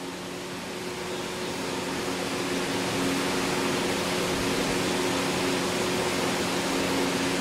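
Steady room hum and hiss with a few low steady tones, like a fan or air conditioner running. It grows a little louder over the first few seconds, then holds level.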